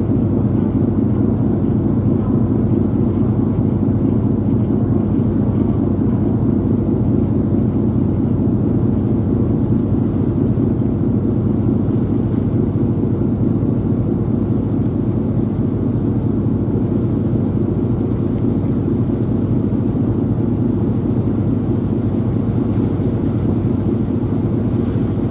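A ferry's engine running steadily under way, a low, even drone with no change in pitch or level.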